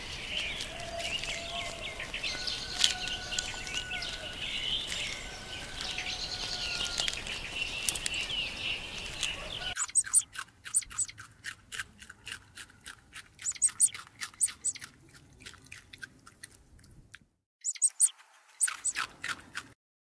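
Many small birds chirping over a steady outdoor hush for about ten seconds. Then, after a sudden change, comes a quick irregular run of crisp crunching clicks: rabbits chewing fresh greens, with a short pause near the end.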